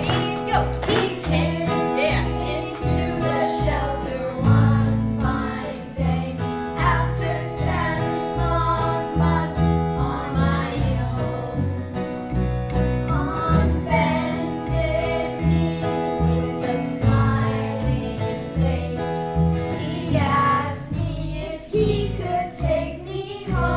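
Live acoustic band: an acoustic guitar and a plucked upright double bass, with the bass notes changing about once a second, accompanying a group of voices singing.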